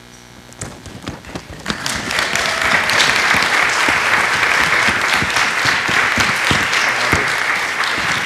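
Audience applauding: a few scattered claps about half a second in swell into full, steady applause by about two seconds.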